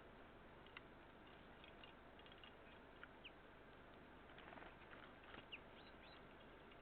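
Faint, scattered short chirps and calls of small songbirds over a steady hiss, a handful of brief high notes spread through, bunched a little around the middle.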